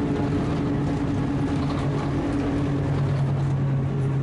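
A vehicle running with a steady low mechanical hum and drone; a second, higher steady tone drops out about three seconds in.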